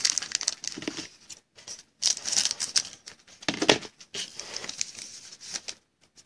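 Trading-card pack wrapper crinkling and tearing as it is opened by hand, with the cards rustling and clicking against each other in a quick run of short crackles.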